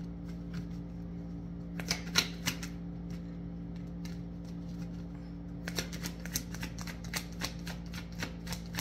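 A tarot deck being shuffled by hand: sharp card clicks and slaps, a few about two seconds in, then a quick run of them from about six seconds on. A steady low hum runs underneath.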